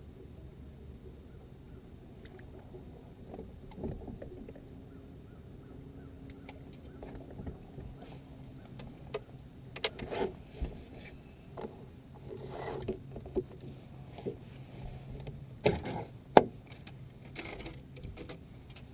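Scattered knocks and rattles of fishing gear handled on a bass boat's fibreglass front deck, with a sharp knock about three-quarters of the way through, over a steady low hum.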